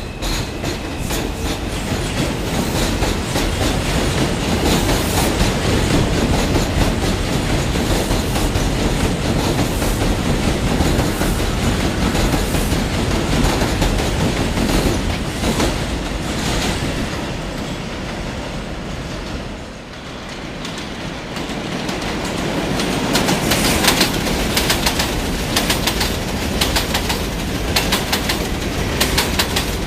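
R142 subway train running through the station, wheels clattering over the rail joints with a steady rumble. It eases briefly about two-thirds of the way through, then builds again with rapid clicking.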